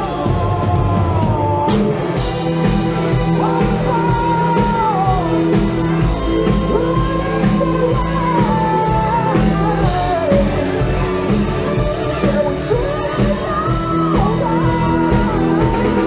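Live hard rock band playing at full volume: electric guitars, bass and drums under a high sung lead line that slides between long held notes.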